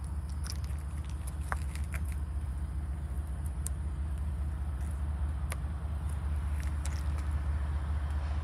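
Distant diesel locomotives of an approaching freight train working hard: a steady low engine rumble that slowly grows louder as the train nears.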